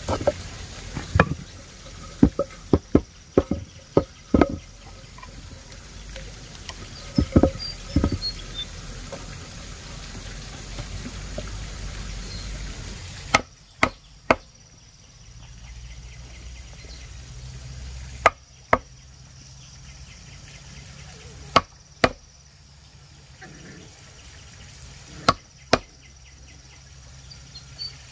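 Sharp chopping strikes, a quick irregular run in the first eight seconds, then pairs of strikes every few seconds.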